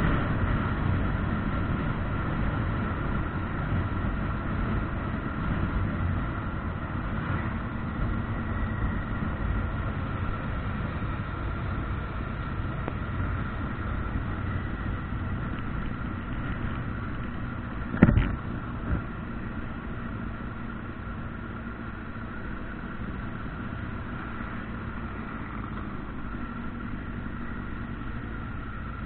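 Motorcycle riding at road speed: steady engine drone mixed with wind and road noise, growing gradually quieter. A sharp knock about 18 seconds in, followed by a smaller one a second later.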